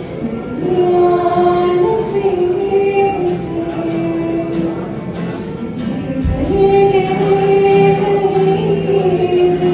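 A woman singing slow, long-held notes into a microphone, with a strummed acoustic guitar accompanying her.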